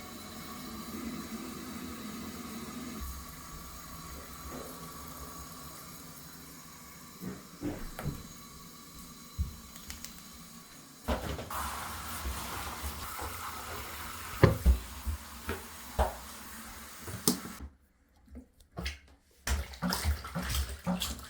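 Tap water running into a sink or tub as a puppy is bathed, with sharp knocks and splashes in the second half.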